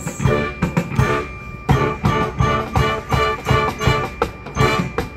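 Marching band playing: horns sounding held notes over a regular drum beat, with the front-ensemble keyboards and percussion.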